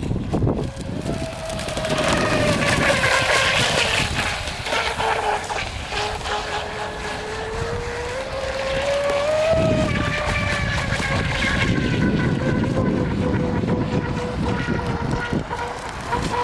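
Radio-controlled scale model Riva speedboat's motor running at speed: a steady whine whose pitch rises and falls, climbing highest a little past halfway before settling.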